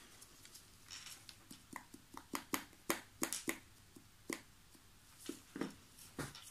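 Irregular light clicks and taps from handling small plastic pigment pots, their lids and resin mixing cups while mixing pigment powder into epoxy resin.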